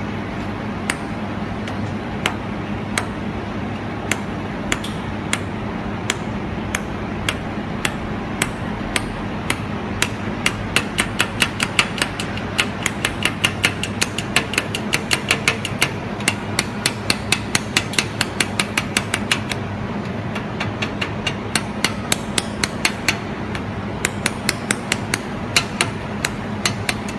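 Pulsed fiber laser welder firing, each pulse a sharp tick, over a steady machine hum. The ticks come about once a second at first, speed up to about three or four a second midway, slow down, then quicken again near the end.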